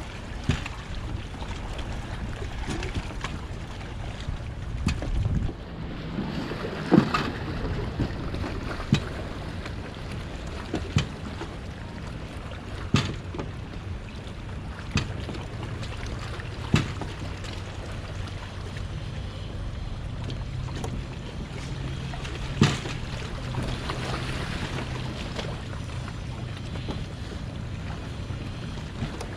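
Wind on the microphone and water around moored boats, under a steady low hum, with sharp knocks every couple of seconds from a boat hull knocking against another boat.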